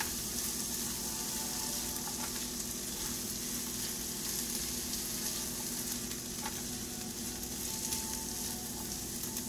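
Chopped red onions and garlic sizzling in oil in a nonstick frying pan as a silicone spatula stirs them: a steady frying hiss with a couple of faint taps.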